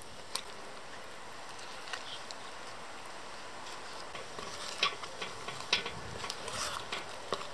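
Metal knife stirring thick ready-made wood filler in a plastic tub. It is quiet at first; from about halfway through comes a run of short scrapes and clicks of the blade against the tub.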